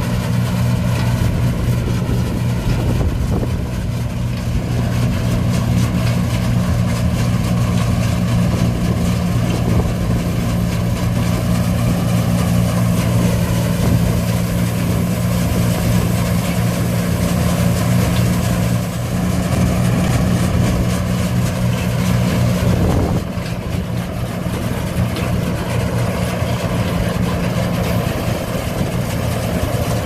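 Kincaid 8-XP plot combine running steadily while harvesting, a constant engine drone under the clatter of its threshing machinery. The level dips slightly and the tone shifts about three-quarters of the way through.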